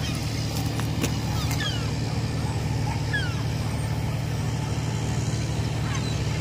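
A steady low engine hum, with a few short, falling bird chirps scattered over it.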